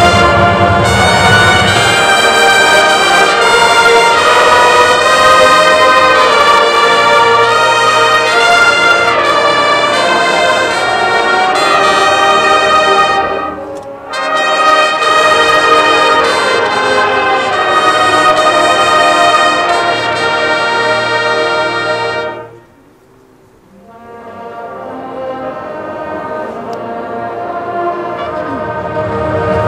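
Marching band brass playing a loud, sustained passage with a short break about halfway. The music cuts off about two-thirds of the way through, then swells back in, growing steadily louder.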